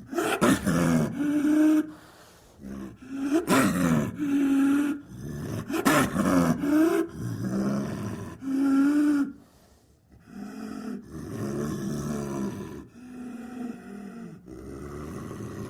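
Snow leopard calling: a string of drawn-out, wavering calls, each a second or two long. About ten seconds in there is a brief break, and the calls that follow are softer.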